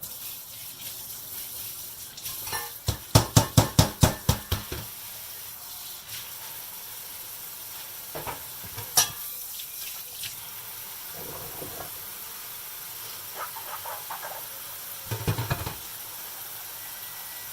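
Food sizzling in a frying pan, a steady hiss, with a quick run of about ten knocks three to five seconds in and a few scattered clinks later.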